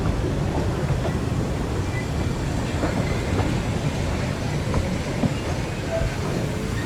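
Narrow-gauge passenger train running along the track, heard as a steady rumble with light clicking of the wheels over the rail joints.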